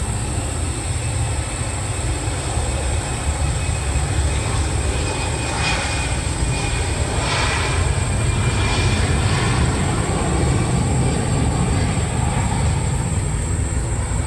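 Airbus A320 jet engines at take-off power during the take-off roll: a loud, steady low rumble, with a brief rise in hiss in the middle.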